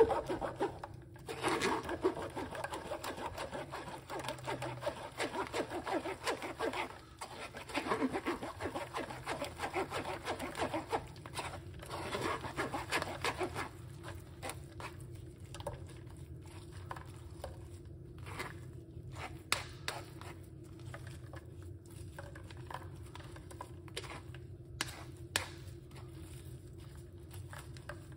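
Metal spoon scraping and stirring wet blended pulp in a plastic mesh strainer, a fast run of scrapes that gives way about halfway through to slower, scattered taps and clicks of the spoon against the sieve.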